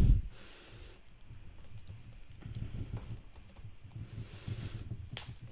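Soft, clay-textured slime being kneaded and poked by hand: irregular soft clicks and low squishy thumps, with a louder low thump right at the start and a sharper click near the end.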